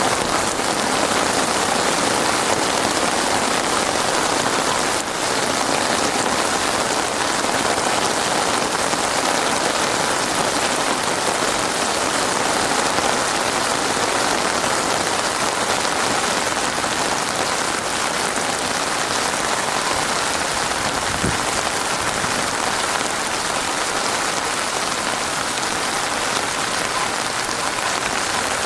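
Heavy rain pouring steadily on surfaces, a dense even hiss of drops with no letup.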